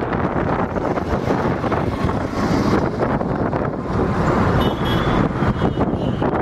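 Steady rumble of a car driving along a road, engine and tyre noise heard from the moving car, with a couple of brief high-pitched tones about three-quarters of the way through.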